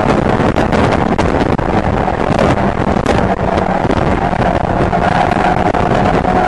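Mazda MX-5 race car's four-cylinder engine running hard at a steady pitch, heard from inside the cabin, with heavy wind buffeting on the microphone. The level dips briefly twice.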